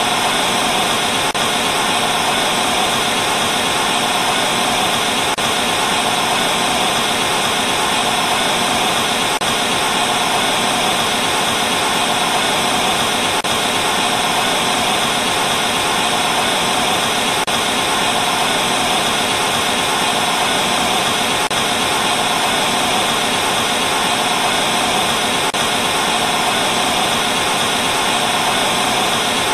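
TV static from a television with no signal: a loud, steady, even hiss of white noise that does not change.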